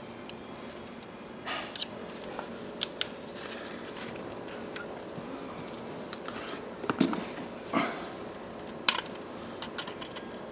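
Scattered metallic clicks, clinks and knocks of hand tools and car parts being handled, over steady background noise. The loudest knocks come about seven to nine seconds in.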